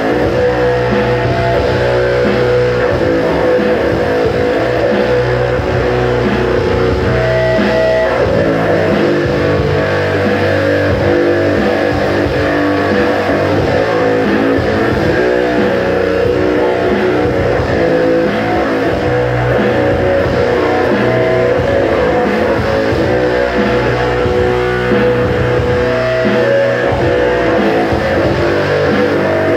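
Electric guitar played loudly through an amplifier: continuous rock music.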